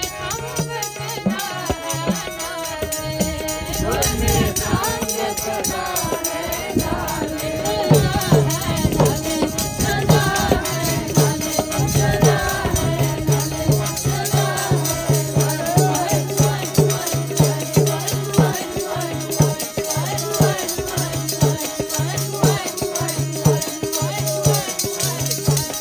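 Sikh devotional singing by a group, with a steady beat of sharp percussion strokes. From about eight seconds in, a low note pulses on and off in time with the beat.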